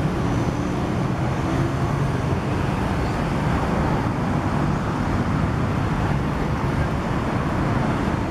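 Road traffic noise from a busy, congested city street: a steady rumble of many cars and buses moving together.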